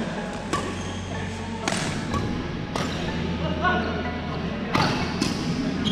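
Badminton rally: rackets striking the shuttlecock in a string of sharp hits about a second apart, echoing in a large hall, over a steady low hum.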